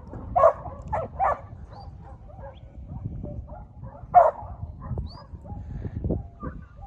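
Working yard dog barking at a small mob of sheep: three quick barks in the first second and a half, then one more about four seconds in.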